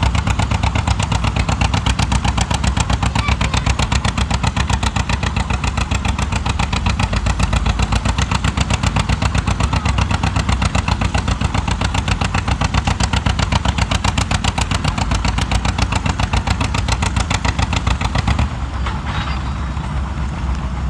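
Pulling tractor's engine running hard at high throttle, a loud rapid pulsing exhaust beat. About eighteen and a half seconds in it drops back to a quieter, smoother run as the throttle comes off.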